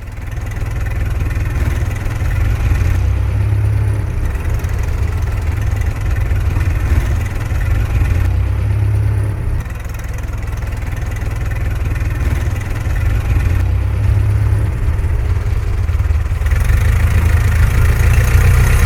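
Old car's engine idling steadily, fading in at the start.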